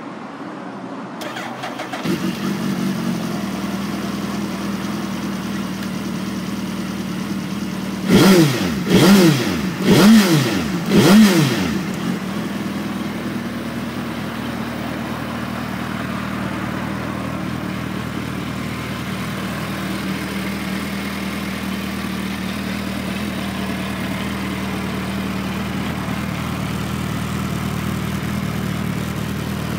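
2014 Suzuki GSX1300R Hayabusa's inline-four with Yoshimura mufflers starting about two seconds in and settling to a steady idle. A third of the way through it is blipped four times in quick succession, each a quick rise and fall in pitch, then it goes back to idling.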